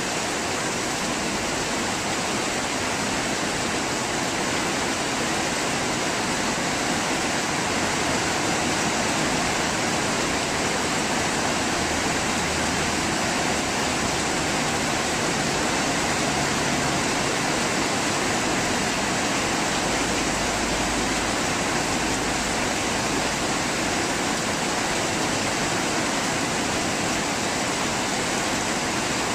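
Heavy rain falling in a steady downpour during a storm, a constant even hiss.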